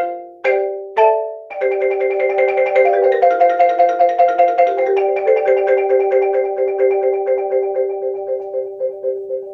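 Solo marimba: three struck chords about half a second apart, then from about a second and a half in a fast, steady stream of repeated mallet notes on several pitches that gradually grows quieter.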